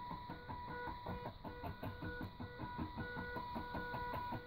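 Stepper motors of a pen plotter built from two DVD-drive mechanisms, stepping through short, quick moves. They make a buzzing whine at one fixed pitch that starts and stops several times a second, with fast clicking underneath.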